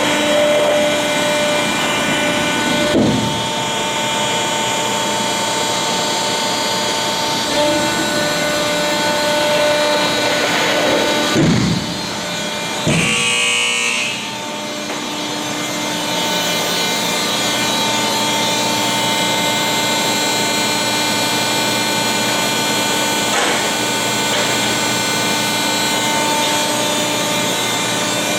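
Selco horizontal baler running, its 40-hp electric motor and hydraulic pump giving a loud, steady mechanical hum and whine with several held tones. The sound shifts briefly about 3, 11 and 13 seconds in, with a short dip in loudness just after the last.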